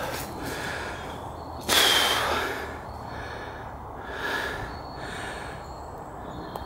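A person breathing hard while walking through woodland, each breath a rush of air about once a second, with footsteps in the leaf litter; the loudest breath comes about two seconds in.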